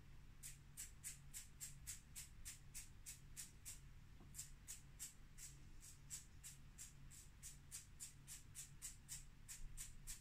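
Faint, rapid scratching of a drawing tool working short strokes on the painting's surface, about five strokes a second, with a short pause about four seconds in.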